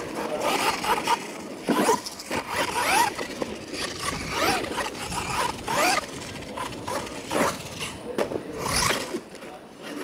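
Radio-controlled monster truck's electric motors and gears whining in quick rising surges as the throttle is punched again and again, with the tyres scrabbling on the dirt.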